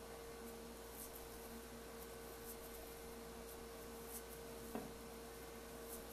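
Quiet room tone with a steady hum, and faint soft rustles from hands pinching off portions of soft khoa dough, with one light click about three-quarters of the way through.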